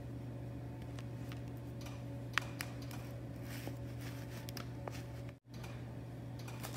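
Steady low machine hum in a kitchen, with faint scattered clicks and taps as hot dog buns are handled in an aluminium foil pan, and one sharper click about two and a half seconds in. The sound drops out for an instant just past five seconds.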